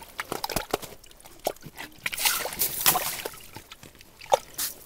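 Water splashing and sloshing in an ice-fishing hole as a lake trout thrashes and is lifted out by hand, in irregular sharp slaps, the loudest near the end.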